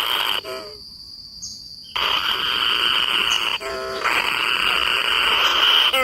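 Dense, steady high buzzing chorus of insects. It cuts out abruptly for about a second and a half near the start, then comes back. Two short calls falling in pitch sound at about half a second and about three and a half seconds in.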